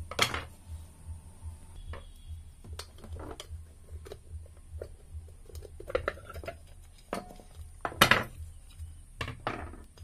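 Scattered metal clinks and knocks as a ceiling fan's motor housing is handled and opened, its top half carrying the stator coils lifted off the lower shell. The sharpest knock comes about eight seconds in.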